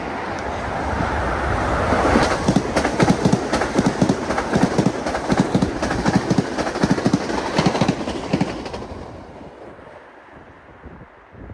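Metro-North M8 electric multiple-unit train passing close by, its wheels clacking rhythmically over the rail joints, about three or four clacks a second. The clatter builds over the first couple of seconds and fades away about eight seconds in.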